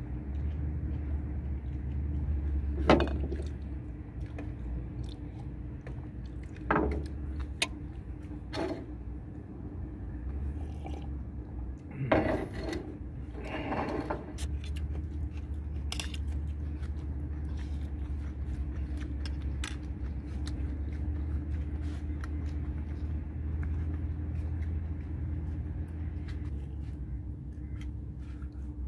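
Scattered clicks, taps and knocks of people eating crab and fish off plates by hand, over a steady low rumble. The sharpest knocks come about three seconds in and again about twelve seconds in.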